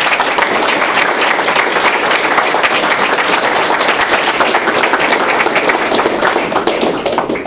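Audience applauding, a dense steady clapping that dies away just at the end.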